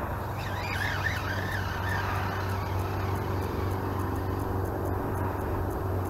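A steady low mechanical drone runs through throughout. Wavering chirps, like a bird calling, sound about a second in.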